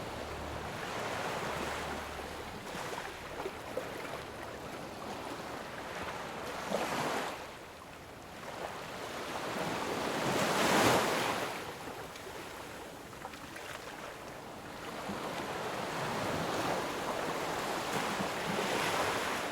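Ocean surf: waves rolling in and washing out in slow swells, the loudest breaking about halfway through.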